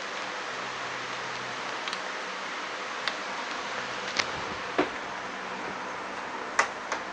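A few sharp clicks and taps of tools and parts being handled, about five in all, the loudest a little before the end, over a steady background hiss.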